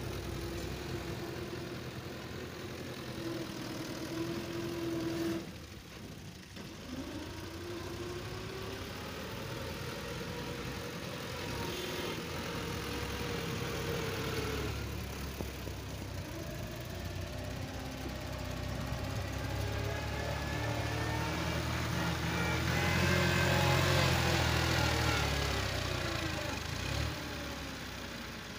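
Farm tractor's diesel engine working under load as it hauls a trolley heaped with sand through loose sand, its pitch rising and falling with the throttle. It is loudest a little after two-thirds of the way through.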